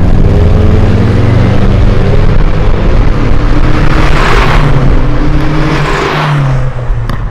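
Car engines running hard under throttle, with two loud pass-bys about four and six seconds in, then a short click near the end.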